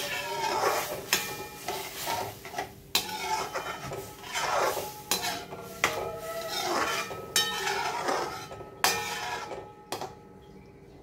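Slotted metal spatula stirring and scraping through a milky semolina-and-banana halwa mixture in a metal kadhai, with sharp clinks against the side of the pan. The stirring stops near the end.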